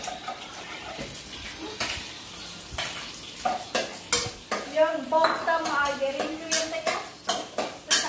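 A spatula scraping and clacking irregularly against a wok during stir-frying, with food sizzling in the pan.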